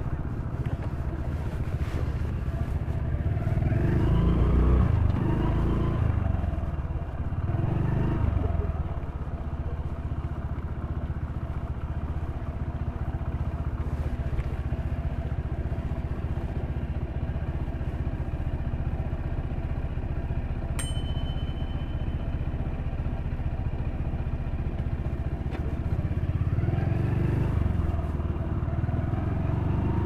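Motorcycle engine running as the bike is ridden, with a steady drone. The engine note rises and falls a few seconds in and again near the end.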